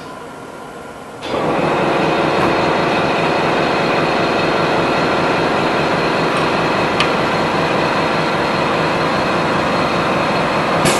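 CNC wood router with a carousel automatic tool changer running: a loud, steady machine noise with a few steady whining tones. It starts suddenly about a second in, with a single sharp click near the middle.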